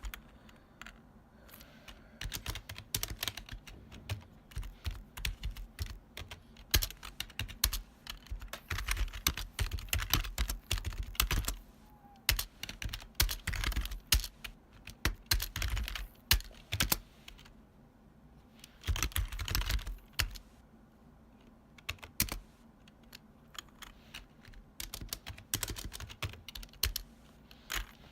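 Typing on a retro long-travel keyboard: loud, clacky keystrokes in quick runs, broken now and then by pauses of a second or two.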